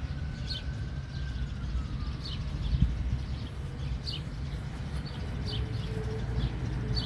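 Small birds chirping, short high calls repeating about once or twice a second, over a steady low rumble.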